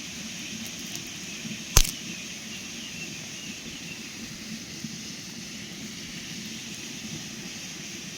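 Steady outdoor background noise with a single sharp snap or click about two seconds in.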